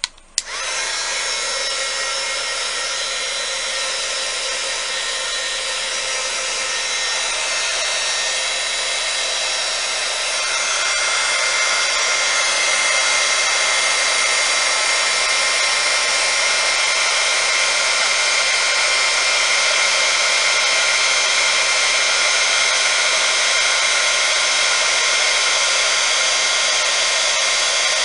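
Electric hot-air blower switched on with a click, then running steadily with a rushing hiss and a motor whine, blowing across wet epoxy resin to push the white pigment into waves and cells. It gets louder about 11 seconds in.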